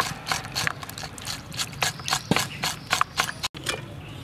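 Kitchen knife scraping the rough outer skin off a raw beef tongue in a plastic basin: quick, uneven scraping strokes, about three or four a second, that stop about three and a half seconds in.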